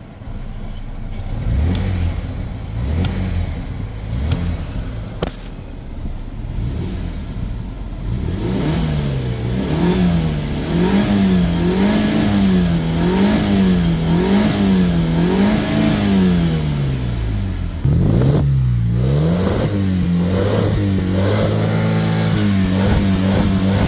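BMW E90's engine being revved in repeated throttle blips, its pitch rising and falling over and over. About 18 seconds in the sound changes suddenly and gets louder, and the revving carries on.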